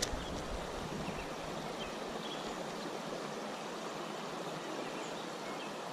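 Small river current flowing over rocks: a steady rushing of water.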